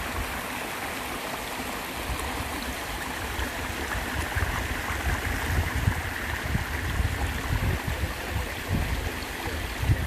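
Small rocky mountain brook babbling steadily over stones and shallow riffles, with uneven low rumbling underneath.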